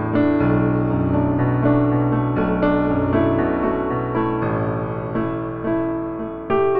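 Background piano music: a slow melody, a new note about every half second, over held low notes.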